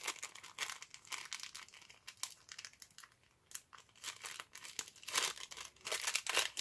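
Paper and packaging rustling and crinkling as bundles of paper labels are handled, in short irregular crackles that grow louder about five seconds in.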